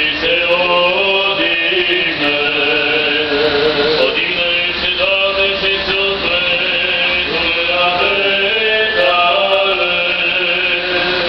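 Men's voices chanting an Orthodox funeral service, slow and sustained, each note held for about a second before moving to the next.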